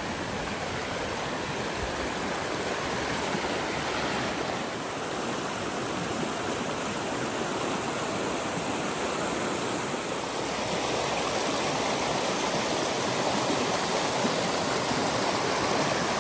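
Rain-swollen creek running full and fast, rushing over rocks in small rapids: a steady rush of water.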